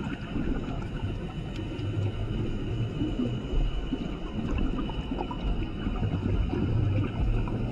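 Underwater sound of a scuba diver's regulator, with exhaled bubbles rumbling over steady ocean noise. The bubbling swells about two seconds in and again near the end.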